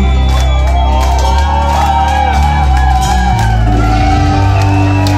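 Live reggae-punk band with electric guitars, bass, drums and keyboard, playing loudly through a club PA. The bass changes note about three seconds in, and the crowd shouts and whoops over the music.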